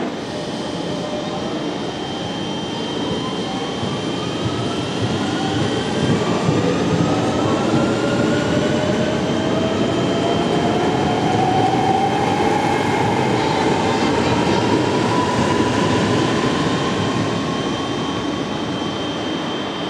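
Electric multiple unit pulling out along the platform: its traction motors whine, several tones rising slowly and steadily in pitch as it gathers speed, over the rumble of the wheels on the rails.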